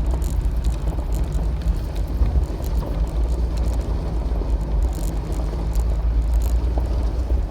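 Jeep Wrangler driving, heard from inside the cabin: a steady low rumble of engine and road noise, with a few faint clicks or rattles.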